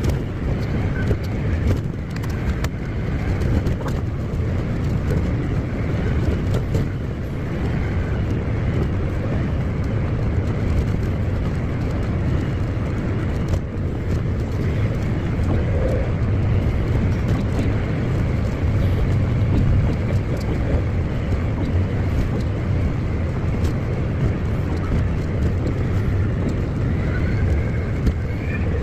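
Tracked farm tractor driving at road speed, its engine and tracks making a steady low rumble.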